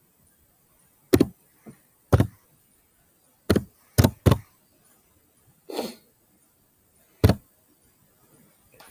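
Computer keyboard keys pressed one at a time, six heavy knocks at a slow, uneven pace as a word is typed letter by letter. A softer, longer rustle comes between the last two.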